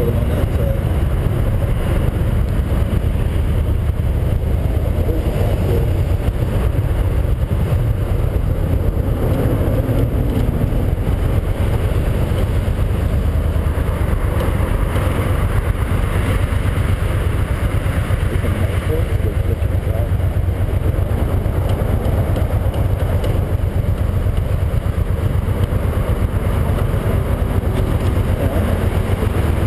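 1983 Yamaha Venture XVZ12TK's V4 engine running as the heavy touring bike rolls along a dirt trail, with a steady low rumble.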